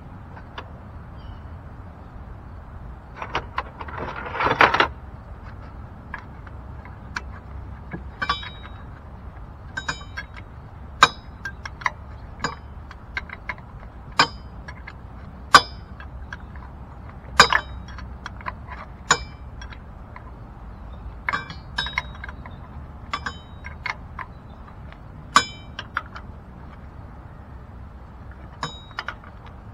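Hand tools clinking on metal in a car's engine bay as mount bolts are worked by hand: irregular sharp metallic clinks with a short ring, about one a second, and a brief scraping rustle about four seconds in.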